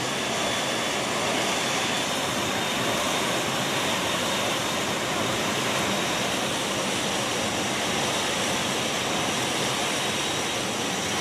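Jet engines of a C-17 Globemaster III transport running, a loud, unbroken rushing roar with a faint constant high whine.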